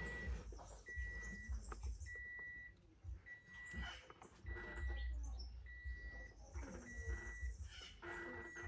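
An electronic beep: one high, steady tone about half a second long, repeating evenly about every 1.2 seconds, over a low rumble.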